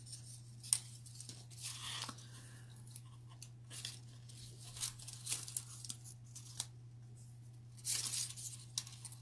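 Paper quilling strips rustling and scraping as they are handled, slid against one another and lined up by hand, with a few soft clicks of tweezers, in short scratchy bursts, the busiest about two seconds in and near the end. A faint steady low hum runs underneath.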